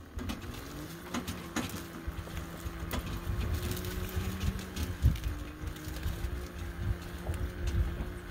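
Small electric tractor's 2.5–3 kW moped-type electric motor and 16:1 gear reduction whining as it drives along a crop row. The pitch rises as it gets going and then wavers with speed, over a low uneven rumble and scattered clicks and knocks from the drive and the cultivator in the soil.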